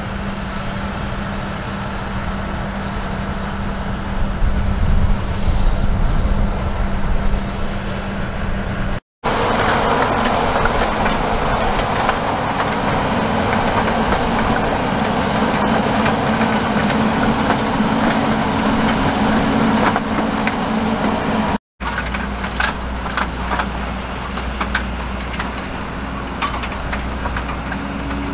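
Fendt tractor diesel engines running steadily under load while working a potato field, over three shots cut together with two brief drop-outs. In the middle shot a Grimme CS 150 bed separator adds a dense rattling as it sifts the soil. In the last shot, behind a potato planter, scattered sharp clicks sound over the engine.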